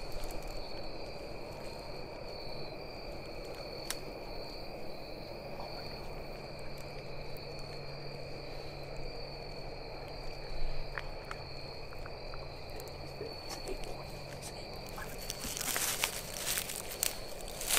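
Steady high trilling of an evening insect chorus in a field edge. Near the end it is covered by close crackling rustles of dry leaves, brush and clothing as someone shifts.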